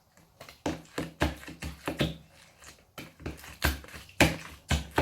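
Sticky homemade slime being worked and mixed in a bowl: an irregular string of short wet taps and knocks, about three a second.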